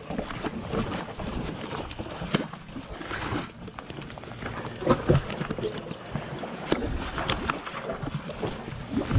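Wind buffeting the microphone, with irregular scuffs and knocks of footsteps on the stone blocks of a jetty; the sharpest knocks come about five seconds in and near the end.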